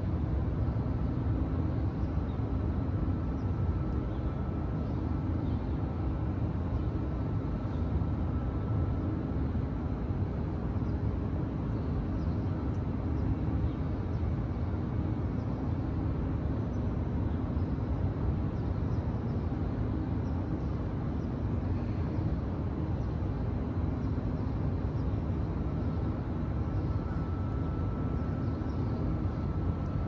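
Steady low rumble of outdoor city background noise, with a faint hum that fades in and out; no bells ring.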